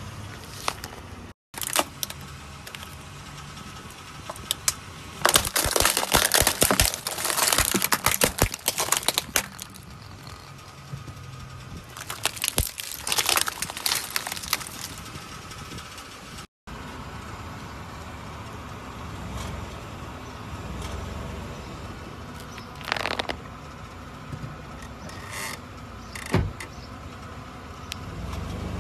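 A car engine running under a steady hum, with loud crunching and crackling as objects are crushed under its tyres in two long bouts, then a few single sharp cracks.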